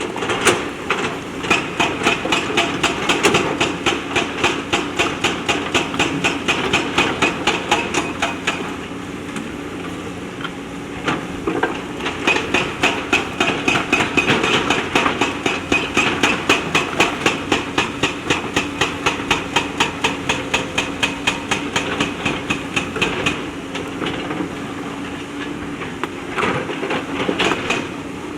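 JCB backhoe loader's diesel engine running under a rapid, even hammering at about four blows a second, which comes in two long runs separated by a pause of about three seconds, with a shorter run near the end.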